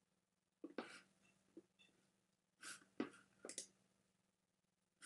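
Near silence: room tone with a faint steady hum and a handful of short, soft breaths and clicks.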